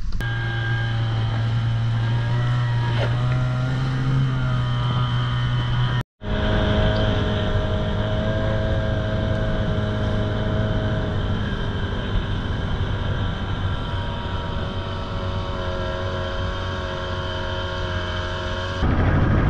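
Small outboard motor pushing an inflatable boat along, running at a steady cruising speed. The sound cuts out completely for a split second about six seconds in, then carries on unchanged.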